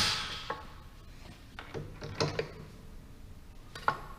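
A Bridgeport Rapid 8 power drawbar's rapid hammering dies away in the first half-second, followed by a few light metallic clicks and knocks, including a small cluster about two seconds in.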